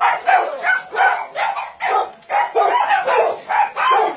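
Many farmed dogs barking continuously, with short barks overlapping at about three or four a second.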